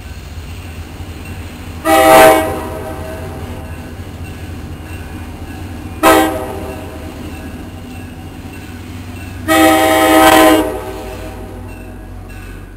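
Air horn of an EMD GP40PH-2 diesel locomotive sounding three blasts as it approaches: a longer one about two seconds in, a short one about six seconds in, and a long one about nine and a half seconds in. The low rumble of the oncoming train runs underneath.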